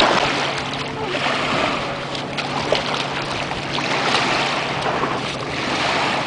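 Small lake waves lapping on a sand beach, swelling and falling back every second or two, with wind on the microphone. A steady low hum runs underneath.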